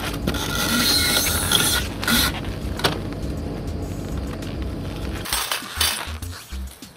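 Wooden boards scraping and knocking as they are handled and stacked into a crib, with a sharp knock about three seconds in. Background music with a low bass line comes in near the end.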